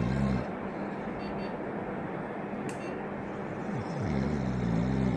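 A sleeping dental patient snoring: one low, wavering snore trails off just after the start, and the next begins about four seconds in. A steady hiss runs underneath, with a short click near the middle.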